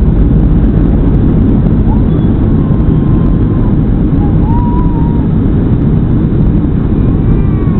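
Airbus A319 cabin noise: a loud, steady low rumble of the jet engines and rushing air, with no sudden changes.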